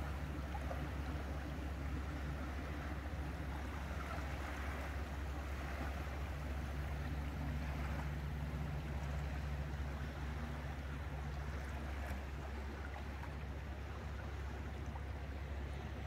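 Boat engine running at a steady pitch, with water rushing past the hull.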